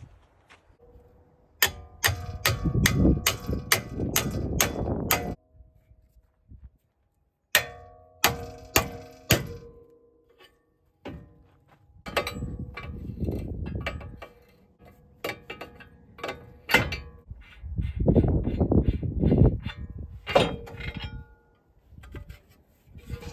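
Repeated sharp metal-on-metal clangs with a ringing tone, in runs of several strikes about two to three a second, from work on a truck's steel front-suspension parts.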